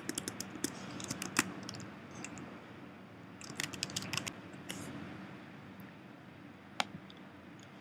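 Typing on a computer keyboard: quick runs of key clicks in two bursts, then a single click near the end.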